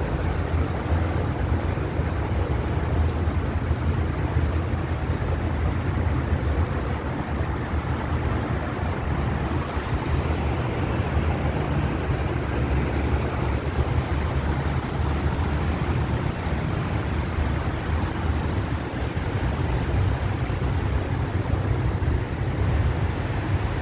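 Steady low rumble and hiss of wind buffeting the microphone on an open-air elevated platform, unbroken and without any distinct event.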